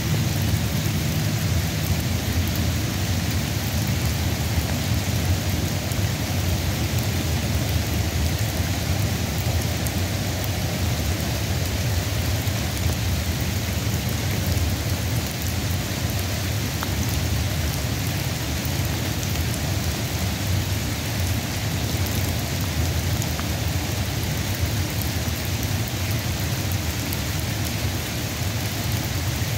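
Steady sun-shower rain, an even hiss of many drops with a constant low rumble beneath, unchanging throughout.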